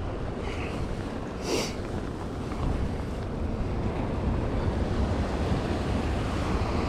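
Sea waves washing and splashing against the rocks close by, with wind rumbling on the microphone; a short rush of surf about a second and a half in.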